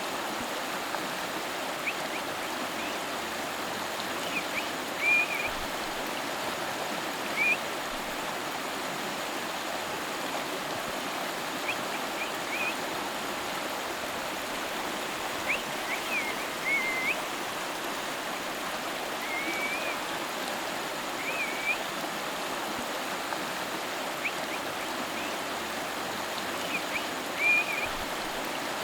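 A river's flowing water, a steady rushing that does not change. Short high chirps come through it every few seconds and are the loudest moments.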